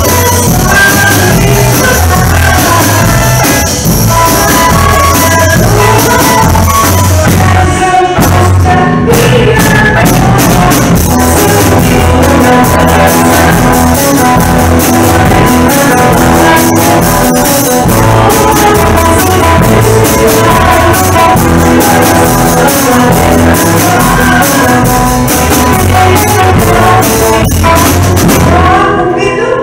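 Live band music: a woman sings into a microphone over an amplified electric bass line and the rest of the band, loud and continuous.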